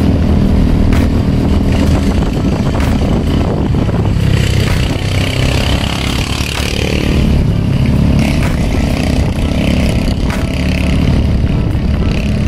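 Motorcycle engine running on the move, with wind rushing over the microphone. The engine note dips about halfway through, then picks up again.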